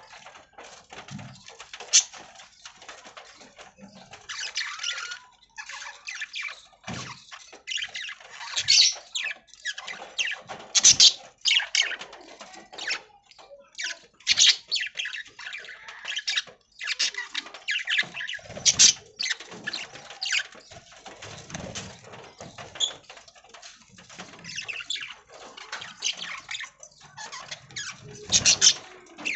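Budgerigars chattering and chirping in irregular, overlapping bursts, with a few dull low thumps here and there.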